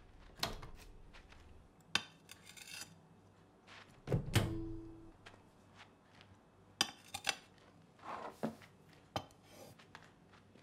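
Kitchen crockery handling: plates, a glass bowl and utensils set down and knocked together in a series of separate clinks and thunks, with a few short scrapes. The loudest knock comes about four seconds in and leaves a brief ringing tone.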